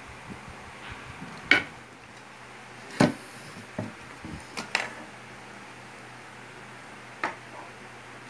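Handling noise from a wooden speaker panel and small hardware: about six scattered, sharp knocks and clinks, the loudest about a second and a half in and at three seconds.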